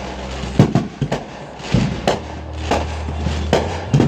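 Aerial fireworks display: shells bursting in a quick irregular string of sharp bangs, about nine in four seconds, over a steady low hum.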